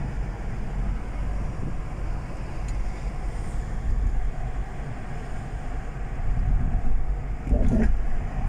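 Road and engine noise inside a car's cabin at highway speed: a steady low rumble with tyre hiss.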